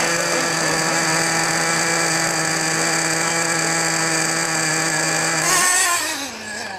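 Small nitro engine of a 1/10 scale RC truck running at a steady high pitch, then revving up and down near the end.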